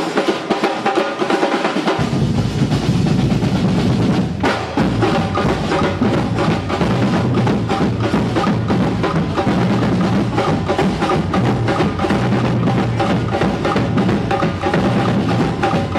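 Drums and percussion playing, with rapid snare beats and a bass drum that comes in about two seconds in.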